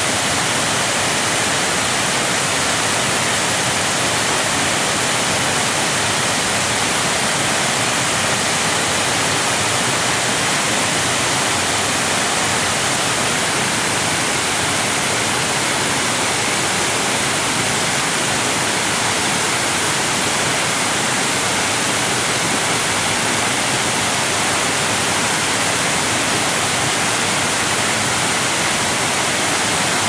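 River rapids: whitewater rushing over rocks in a steady, unbroken rush, more hiss than rumble.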